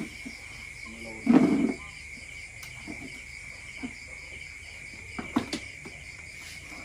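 Crickets chirping steadily in the night background. About a second and a half in there is one short loud low sound, and a few sharp clicks near the end come from a knife on a plate as pork belly is cut.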